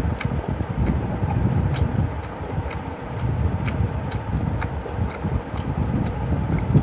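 Close-up chewing of a mouthful of egg roll with the mouth closed: short wet mouth clicks about two a second over a steady low rumble.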